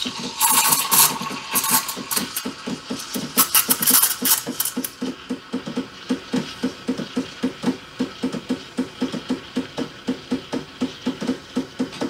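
Espresso machine steam wand steaming milk in a steel pitcher: a hiss with sharp chirps as air is drawn into the milk for the first few seconds, then the highs drop away to a lower, even pulsing sound, about three pulses a second, as the wand sits deeper and the milk spins.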